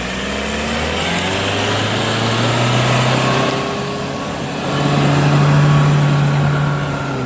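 Off-road vehicle's engine working hard under load. The revs climb, ease back around the middle, then rise higher and hold before easing again near the end.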